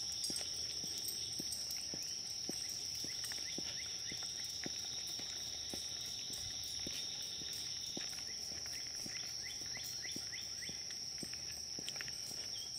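A steady, high-pitched insect drone from the woods, with footsteps on a paved path at about two steps a second. Short runs of quick rising chirps come in a few seconds in and again later.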